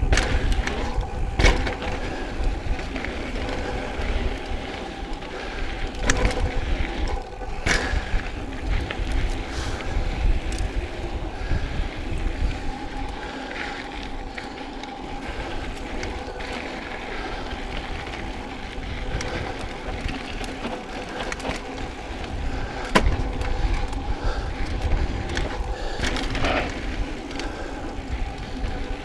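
Mountain bike rolling along a dirt trail: steady tyre noise on dirt and gravel with wind rumble, and a few sharp knocks and rattles as the bike hits bumps.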